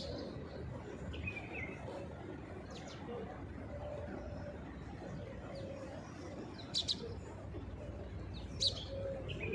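Feral pigeons and doves cooing on and off in low repeated calls, with a few short, sharp, high bird chirps about three seconds in, near seven seconds and near the end, over a steady low background noise.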